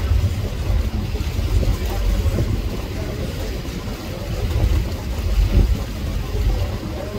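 Staten Island Ferry under way: a continuous low rumble of engine, water and wind, heaviest in the deep range and swelling unevenly.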